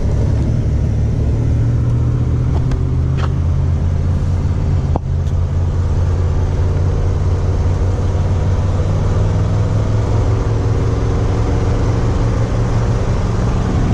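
Cab interior of a mid-1980s Chevy P30-chassis motorhome accelerating along a road: the engine runs under load with a steady low hum, its pitch slowly climbing, over tire and road noise, with a brief dip about five seconds in.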